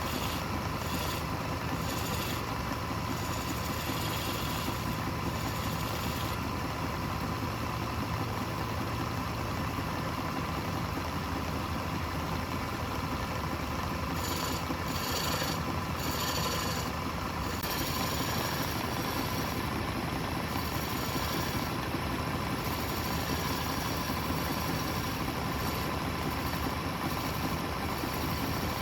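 Wood lathe running with a steady hum, with stretches of higher hiss in the middle that fit a tool cutting the spinning wood.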